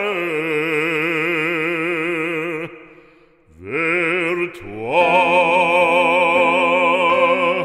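Operatic solo voice singing long held notes with wide vibrato. The voice breaks off briefly about three seconds in, then slides up into another long held note.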